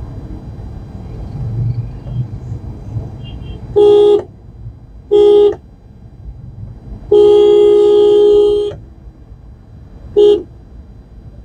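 Car horn honking four times: two short toots, one long blast of about a second and a half, then a brief toot, over the low rumble of the car's engine and the road.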